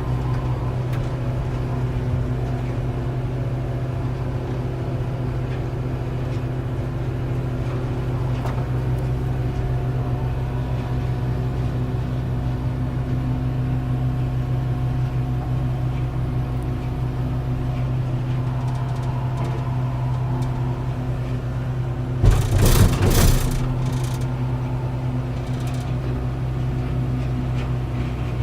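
Heavy diesel-powered tracked crusher running steadily under load, a deep constant drone. About twenty-two seconds in, a loud burst of cracking and knocking lasts a second or two.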